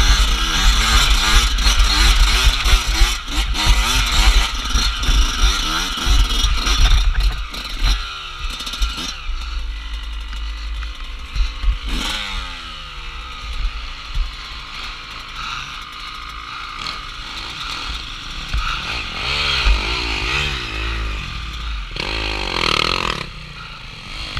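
Dirt bike engine revving hard and constantly changing pitch as the bike rides a rough, muddy trail for about eight seconds. It then drops to a quieter idle with a couple of throttle blips. Near the end the engines of other dirt bikes rise and fall as they approach.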